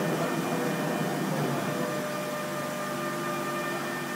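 MultiCam 5000 series CNC router gantry traversing along the table to its park position, a steady machine noise with a few held tones that grows slightly quieter as it moves off.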